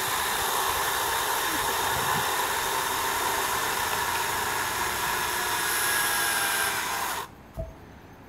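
STIHL battery chainsaw running steadily as it cuts through a wooden post. Its motor stops suddenly about seven seconds in, followed by a single thud as the cut-off top of the post drops to the ground.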